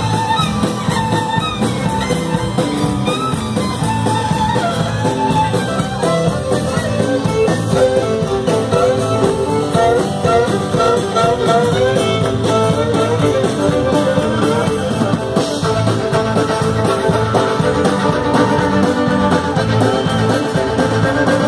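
Live Celtic band playing an instrumental tune: fiddle carrying the melody over electric bass, guitar, drum kit and bodhrán.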